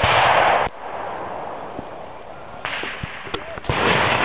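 Scattered single sharp cracks, typical of airsoft guns firing, with a loud burst of rushing noise that cuts off under a second in and another that starts sharply near the end.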